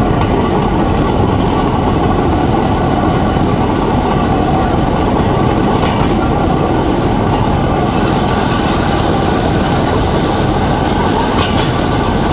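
Motorised rail trolley (draisine) running along a narrow-gauge track: steady engine and wheel-on-rail noise, with a couple of sharp clacks, about six seconds in and near the end.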